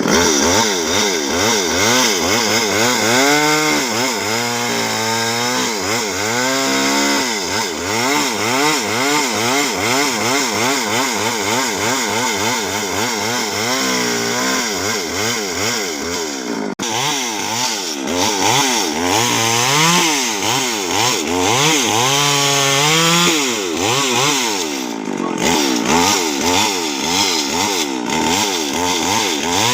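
Gasoline chainsaw running under load as it rips boards from a log, its engine pitch rising and falling constantly as the cut bites and eases, with a brief drop about halfway through.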